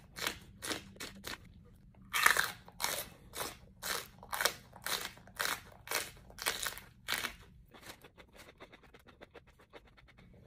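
Close-up crunching bites and chewing of crisp food, about two loud crunches a second, easing into softer chewing near the end.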